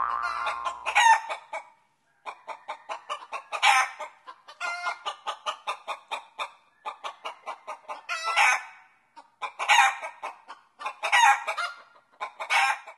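Chickens clucking in quick runs of short calls, broken several times by louder, longer squawks, after dance music ends in the first second or two.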